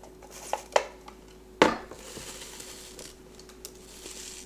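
Plastic vegetable chopper being handled and pressed, its lid not fitted right: a few light clicks, a louder knock about a second and a half in, then a soft rustling noise.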